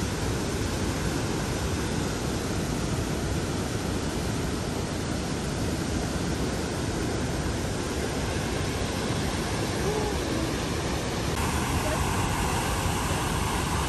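Maligne River whitewater rushing through a narrow rock canyon, a steady even rush of water that gets a little louder about eleven seconds in.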